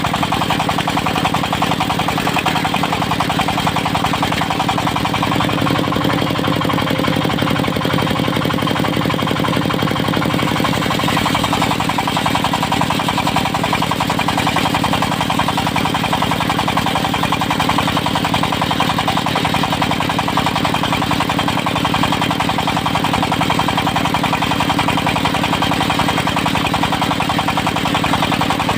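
Diesel engine of a mobile circular-saw sawmill running steadily, with a fast, even pulsing beat.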